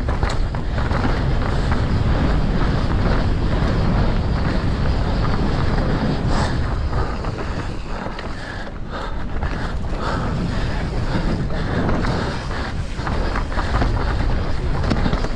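Heavy wind buffeting on the microphone of a mountain bike ridden fast down a trail, over a steady rumble of tyres and frequent knocks and rattles from the bike on rough ground.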